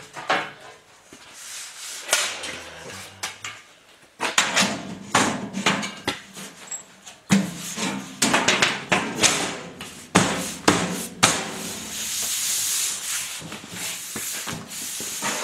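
Sheet-steel lid being lowered onto and worked into place on a sheet-metal toolbox: a string of metal knocks and clanks starting about four seconds in, then a longer scraping rub of steel sliding on steel near the end.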